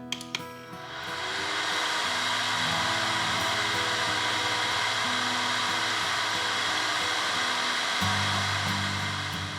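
Two clicks as a SilverCrest ceramic heater is switched on, then its fan blowing warm air with a steady rush that builds up over about a second and holds even.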